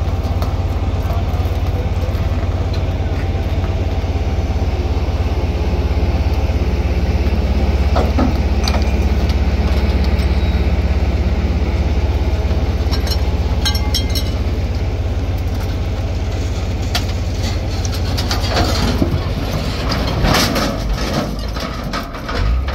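Heavy crane truck's engine running steadily under load as its cable hoists an overturned ZIL-130 truck back onto its wheels. A few metal and stone knocks and clatters come through, more of them near the end.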